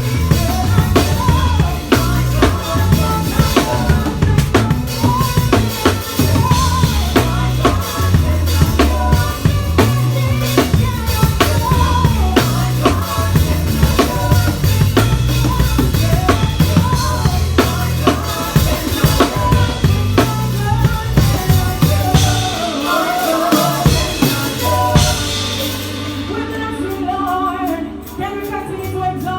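Drum kit played hard in a live church band: kick drum, snare and rimshots with cymbal wash over deep bass notes and other instruments. Near the end the drums drop out, leaving softer held bass and chords.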